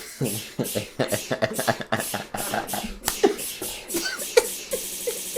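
A person sneezing over and over in a fast, unbroken string, about four short sneezes a second, then breaking up into looser vocal bits near the end.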